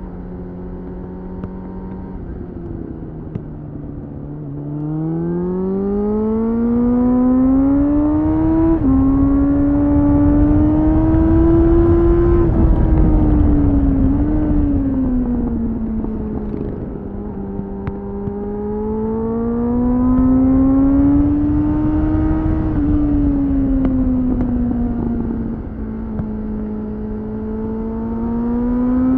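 2001 Suzuki GSF 600 Bandit's inline-four engine through a BOS slip-on exhaust, heard onboard while riding. The engine note holds steady, drops briefly about two seconds in, then climbs from about four seconds, with a short drop in pitch near nine seconds. After that it rises and falls several times as the throttle is opened and closed, with wind rush on the microphone at speed.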